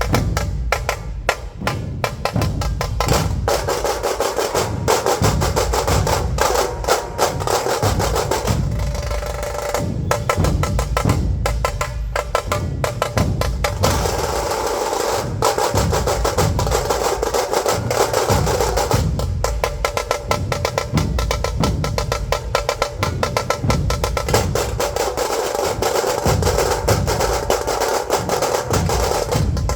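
Dhol-tasha drumming: massed dhol barrel drums and sharp tasha drums beating a fast, loud, driving rhythm.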